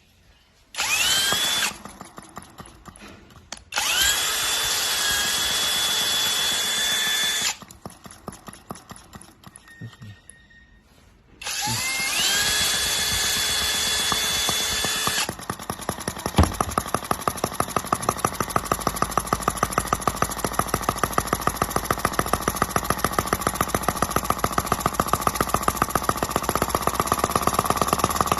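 A miniature model engine is spun three times by an electric starter, a whine that climbs to a steady pitch and then stops, with small clicks between the tries. About sixteen seconds in it fires with a sharp pop and keeps running with a rapid, even beat that grows a little louder.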